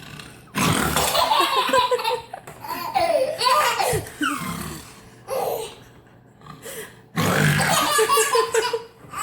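Hearty laughter in bursts, breaking off into a brief lull past the middle and starting up again.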